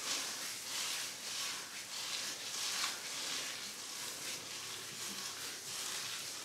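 Fingers sliding conditioner through a section of wet, tightly coiled hair, making a soft, uneven wet rubbing hiss as the hair is worked slippery for detangling.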